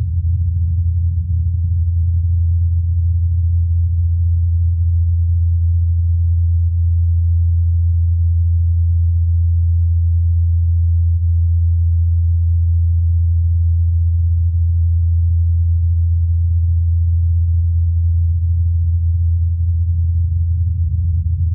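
Steady low hum of NASA's Ingenuity Mars helicopter's spinning rotor blades, picked up on Mars by the Perseverance rover's SuperCam microphone. It is a single unwavering tone with a few faint overtones just above it and no higher sound.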